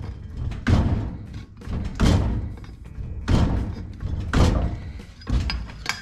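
Metal shrinker's jaws clamping down on a sheet-steel flange again and again, a heavy clunk about once a second, shrinking the edge so the piece curves without buckling.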